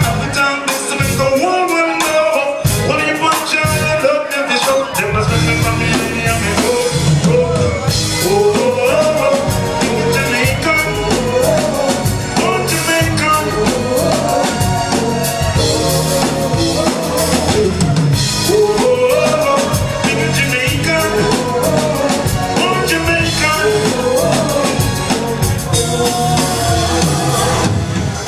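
Live band playing reggae-style music with electric guitar, keyboard, bass and drums, and singing over it. The first few seconds have only sparse drum hits; the bass and full beat come in about five seconds in.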